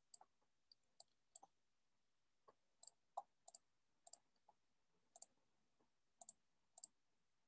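Faint computer mouse clicks, about a dozen at irregular intervals over a quiet background, many coming in quick pairs.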